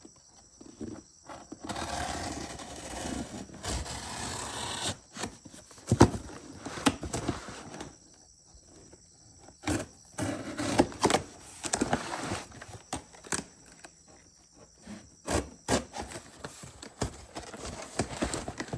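Cardboard shipping box being opened and its contents handled: a rough scraping stretch about two seconds in, a sharp knock about six seconds in, then scattered rustling and knocks.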